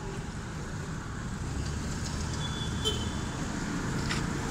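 Light street traffic, with a motor vehicle's engine running and growing louder toward the end.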